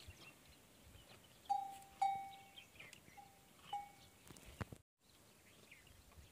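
A small metal bell hanging from a camel's neck clinks four times, short clear rings that fade quickly, two close together about a second and a half in and two more about a second later.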